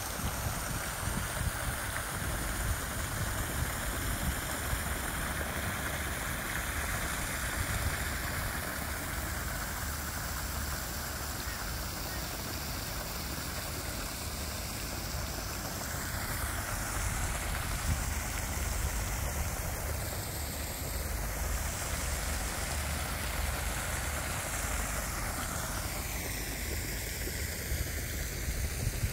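Steady outdoor rushing noise with a low rumble underneath; the hiss slowly shifts in tone, rising and falling, without distinct calls or knocks.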